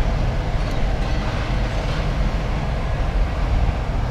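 A large engine running steadily, a continuous low rumble.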